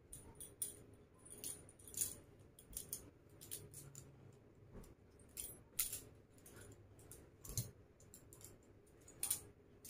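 Bangles on a woman's wrists clinking faintly and irregularly as she handles and folds a blanket.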